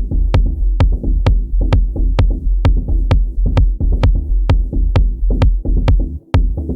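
Electronic beat played on a Native Instruments Maschine 2 drum sampler: a heavy sustained bass under crisp high percussion hits about twice a second. The beat drops out briefly about six seconds in, then comes back.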